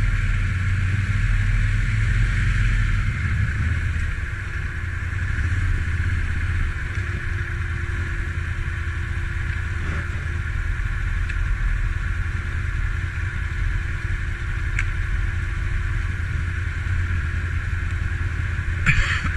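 Can-Am ATV engine running steadily at low revs, with a deep rumble that eases slightly after the first few seconds.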